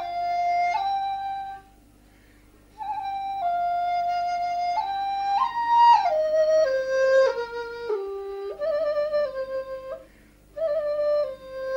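Background flute music: a slow melody of held notes that steps mostly downward, broken by two short pauses between phrases.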